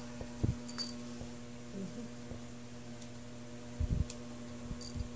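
Shih Tzu puppy being groomed: a few short, light clicks of grooming scissors trimming its coat, and dull knocks from handling on the table about half a second in and around four seconds, over a steady low hum.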